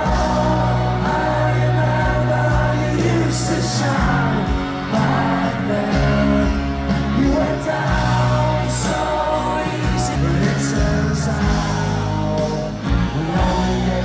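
Music with singing: a song with a heavy, steady bass line and sung vocals.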